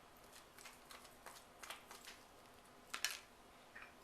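A few faint, scattered clicks and taps, with one sharper click about three seconds in, as softened butter is added to a pot of drained boiled potatoes.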